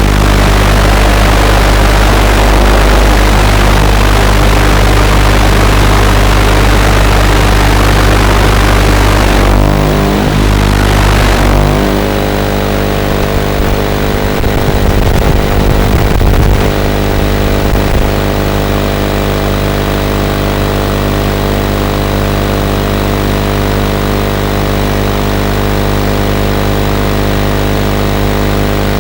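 Eachine Racer 250 racing quadcopter in flight, its electric motors and propellers giving a steady drone mixed with loud rushing noise. About twelve seconds in, the rushing noise drops away and a steadier hum remains.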